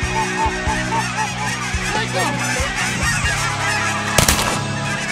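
A large flock of Canada geese honking overhead, many calls overlapping. About four seconds in, a single sharp shotgun shot cracks out over the honking.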